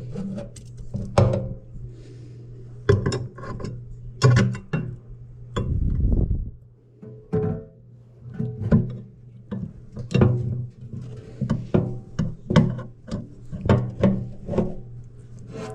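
Background music with plucked bass notes over a steady low tone.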